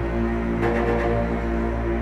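Soundtrack music of sustained low held notes.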